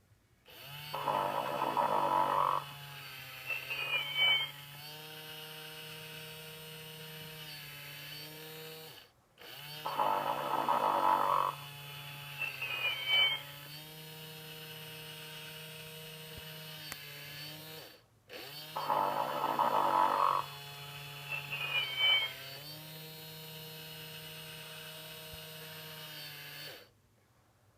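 Sleep 'n Snore Ernie toy playing its recorded snoring loop three times in identical cycles. Each cycle is a loud snore, then a short whistle that bends up and down in pitch, then a long steady humming tone.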